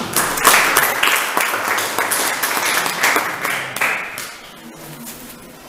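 Audience applauding, a dense patter of hand claps that dies away about four seconds in.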